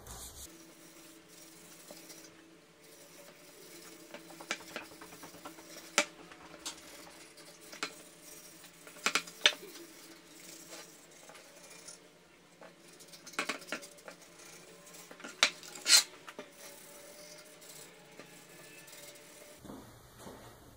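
A rag wiping wood stain onto a board, with scattered sharp clicks and knocks as the metal stain can and the wooden shelf are handled, the loudest about three-quarters of the way through.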